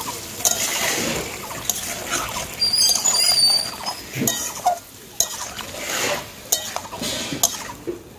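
Metal spatula scraping and clinking against an aluminium kadai, stirring Malabar spinach with mustard-chilli paste in an irregular run of knocks and scrapes over a light sizzle. A few high chirps come in about three seconds in.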